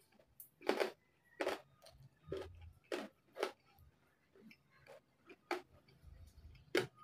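Close-up chewing of crispy deep-fried pork knuckle and rice: short, irregular chewing and mouth sounds, about one or two a second.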